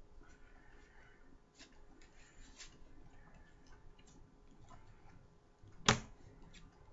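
Faint scattered light ticks and handling noise, then one sharp tap near the end as a football glove is set down on a glass tabletop.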